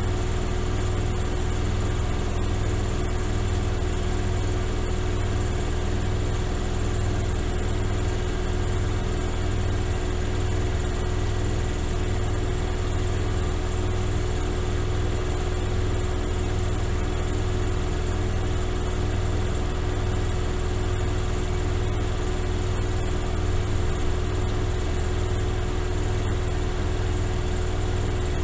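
Miele Softtronic W3923 washing machine running steadily: a constant deep motor hum with a steady whine above it.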